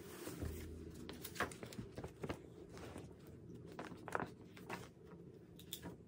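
Faint handling sounds close to the microphone: scattered light taps and rustles as a sheet of paper and a pen are picked up and moved about.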